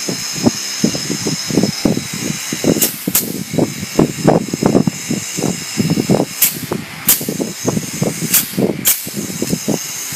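Pneumatic fastening gun firing six times in three close pairs, each a sharp crack as it shoots a fastener into the wire of a chicken layer cage. The steel wire mesh knocks and rattles as it is handled.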